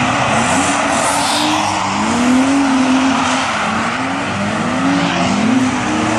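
Drift cars sliding sideways on a wet track: engines revving up and down every second or two over steady tyre noise from the spinning, sliding wheels.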